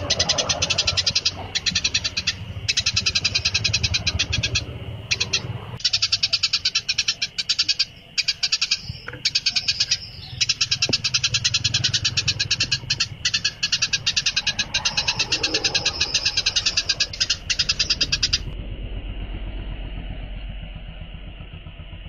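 Recorded songbird song: a fast, unbroken run of high-pitched chips and trills that stops about eighteen seconds in, leaving a steadier, quieter high buzzing trill.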